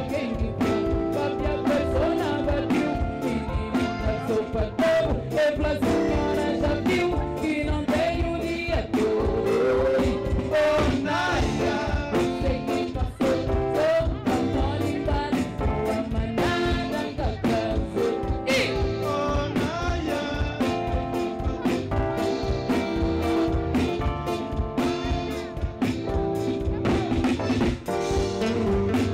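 Live band music: a woman singing over guitar, bass and drum kit, with a steady beat.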